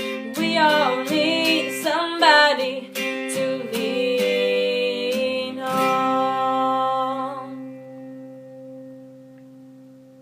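A woman sings the last wordless notes of a song over a strummed acoustic guitar. A final chord about five and a half seconds in rings on and slowly fades away.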